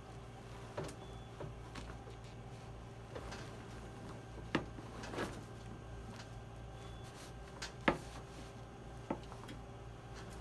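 Several scattered light knocks and bumps from a bed-to-wheelchair transfer on a wooden transfer board, the sharpest near the end, over a steady low room hum.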